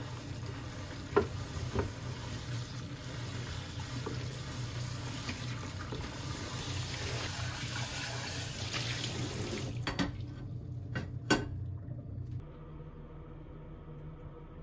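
Tap water running into a sink, with a few sharp knocks. The water shuts off about ten seconds in, then a low hum stops a couple of seconds later.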